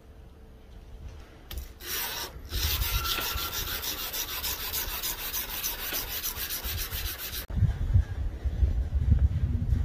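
Abrasive rubbed by hand along the flat of a steel knife blade in quick back-and-forth strokes, several a second, stopping sharply about seven and a half seconds in. The sanding cleans rust and scale off the blade's surface.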